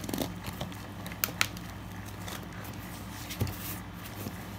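Cardboard shipping box being worked open with a pen: a few sharp taps and clicks as the pen pokes through the packing tape, with faint crackling of tape and cardboard between.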